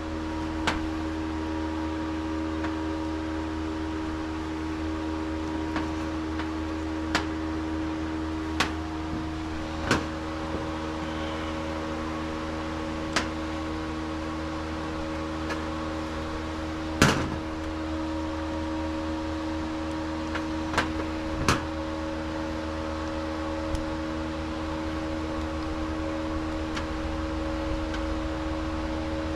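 A steady machine hum with a few fixed tones runs throughout. Scattered over it are short, sharp clicks and clinks of hand tools on metal fasteners, the loudest about 17 seconds in.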